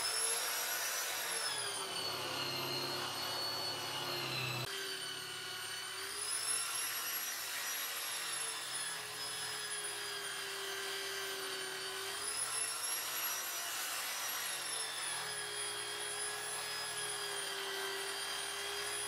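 Angle grinder clamped in a vise running with a dark abrasive wheel, a knife's steel blade pressed against it. The motor whine slowly dips and recovers in pitch every few seconds as the blade bears on the wheel, over a steady hiss.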